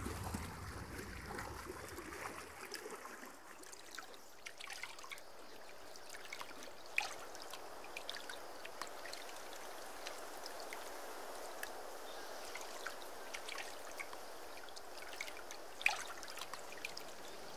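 Lake water trickling and lapping gently around a person floating at the surface, with scattered small drips and splashes; two of them, about a third of the way in and near the end, stand out.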